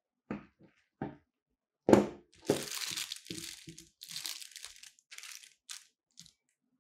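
A few knocks as a metal gooseneck arm is laid down on a table, the loudest about two seconds in, then a clear plastic bag crinkling in the hands for several seconds as it is picked up and moved.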